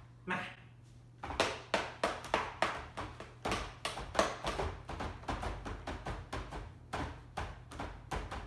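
A quick, irregular run of taps and knocks, about three a second, starting about a second in.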